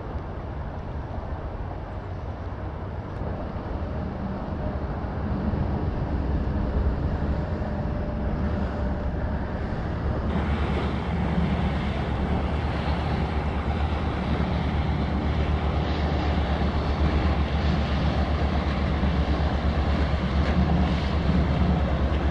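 Wind buffeting the microphone with a steady low rumble, over the wash of water. About ten seconds in the sound turns brighter and hissier.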